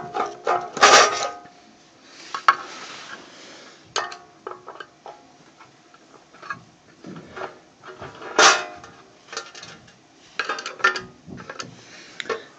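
Metal hand tools, a screwdriver among them, clinking and clattering against each other and a car amplifier's metal case in irregular bursts of handling. The loudest clanks come about a second in and again about eight seconds in.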